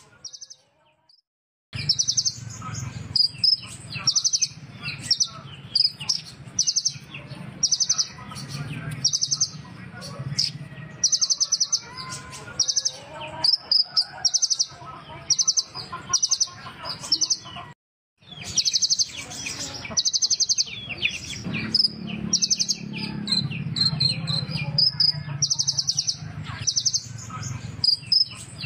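Kolibri ninja sunbird singing: short, high buzzy trills repeated every half second to a second, with quick twittering notes between them. The song begins after a short silence and breaks off very briefly around the middle.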